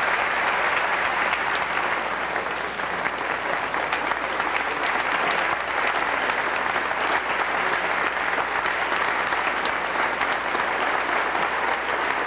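A large audience applauding steadily, an ovation at the close of a speech.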